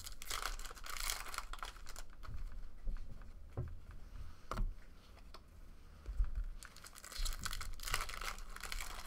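Trading cards and a foil pack wrapper handled by hand: crinkling and rustling as the cards are shuffled through, in two longer spells at the start and near the end, with a few light taps between.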